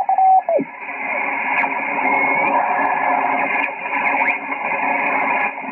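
Yaesu FT-847 receiver audio from the FO-29 satellite's SSB downlink as the tuning knob is turned: a carrier whistle sweeps up, holds briefly and drops away about half a second in, then a steady hiss of the transponder passband with faint garbled signals sliding in pitch as the dial moves.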